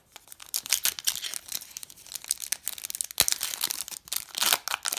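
Foil wrapper of a 2020-21 NBA Hoops trading-card pack crinkling and tearing as it is pulled open by hand: a dense run of sharp crackles, with one sharper snap a little after three seconds in.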